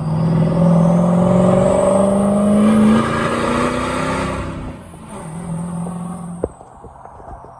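Vehicle engine accelerating, its pitch climbing steadily for about three seconds before it eases off and fades. It is followed by a shorter steady engine note and a few sharp clicks near the end.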